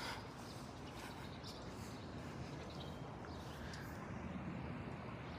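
Faint, steady outdoor background noise of a city residential street, with no distinct sound standing out.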